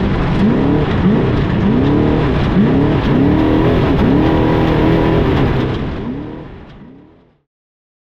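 Off-road race vehicle's engine heard from inside the cab, revs rising and falling over and over, about once a second, as it is driven over rough desert trail. The sound fades out near the end.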